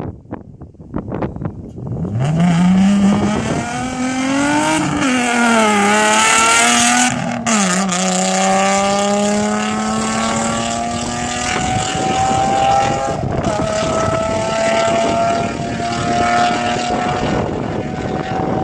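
Nissan 350Z's 3.5-litre V6 through resonated test pipes and a straight-piped exhaust from the X-pipe back, very loud. About two seconds in it revs up sharply and rises and falls a few times. It then pulls in a long steady climb in pitch, dips briefly around the middle, and climbs steadily again.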